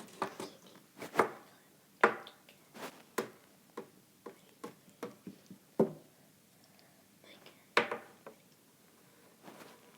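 Irregular taps and knocks close to the microphone, about a dozen spread unevenly, a few of them sharp and loud.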